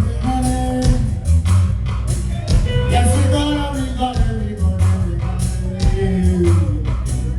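Live reggae band playing, with a heavy bass line, a steady drum beat and a sung lead vocal.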